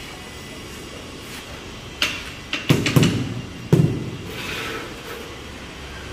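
Ceramic floor tile being knocked and pressed down into its mortar bed: a few sharp taps, then heavier dull thumps near the middle, followed by a short brushing scrape of a hand across the tile surface.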